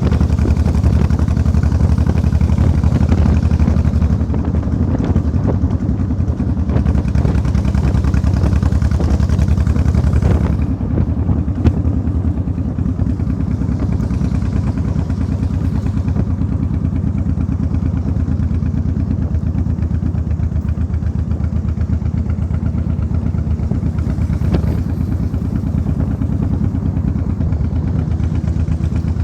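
An engine running steadily with a fast, even pulse, dropping slightly in level about ten seconds in.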